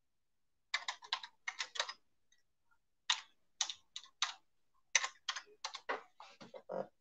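Typing on a computer keyboard: three quick runs of keystrokes with short pauses between them.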